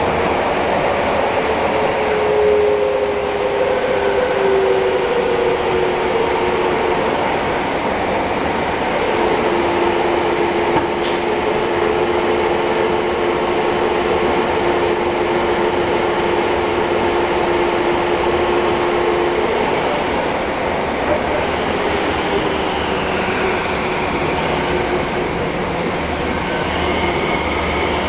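Fukuoka City Subway 1000 series train running through a tunnel, heard from inside the car: a steady rumble of wheels and running noise, with a steady whine through the middle and a higher whine near the end.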